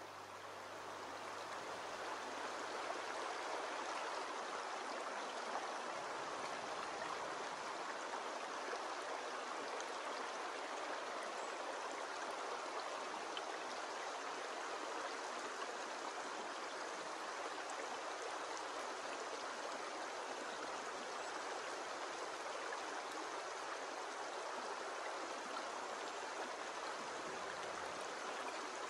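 Shallow stream running over stones: a steady rush and babble of water that fades up over the first few seconds.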